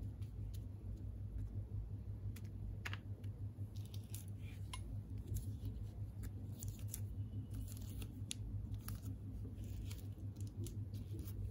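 Plastic chocolate-bar wrappers crinkling and crackling in the hands as a bar is picked up, turned over and set back down, in short scattered crackles over a steady low hum.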